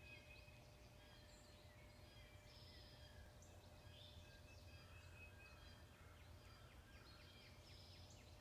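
Faint woodland birdsong: several birds chirping and singing in short phrases throughout, over a low steady background rumble.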